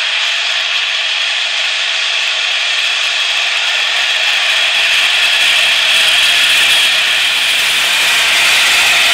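Steel rings of a tractor-drawn field roller rolling over asphalt: a loud, steady, harsh grinding rush that swells slightly after the middle.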